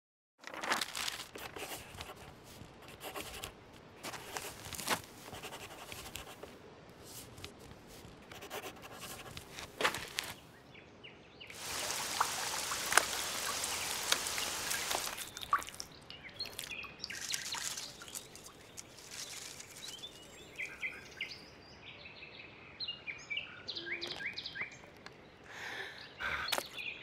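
Water showering from a watering can's rose for about four seconds midway, among scattered drips and clicks; short high chirps near the end.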